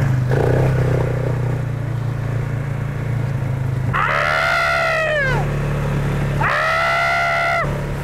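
ATV engine running steadily while riding. Over it come two long whooping shouts from a rider, the first about four seconds in and the second about six and a half seconds in, each dropping in pitch at the end.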